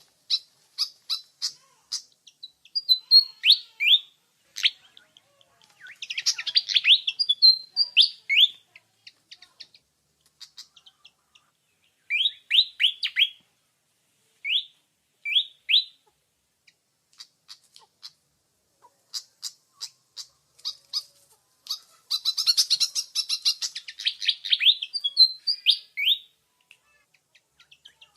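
A songbird singing in short bursts of quick chirps and falling whistled notes, broken by pauses, with two longer rapid chattering trills, one about a quarter of the way in and one near the end.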